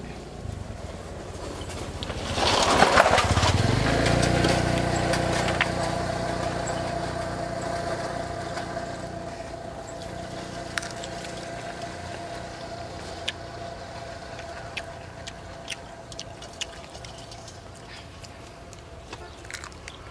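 Small engine running, rising quickly to its loudest about two and a half seconds in, then fading slowly. Sharp clicks of bone-crunching and chewing are heard on top.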